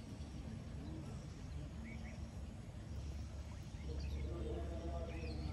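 Rural pond-side ambience: a steady low rumble, a few faint bird chirps, and a distant voice coming in about four seconds in.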